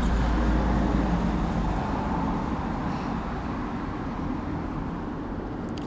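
Steady road-traffic noise, an even background hum with a low rumble that dies away about a second and a half in.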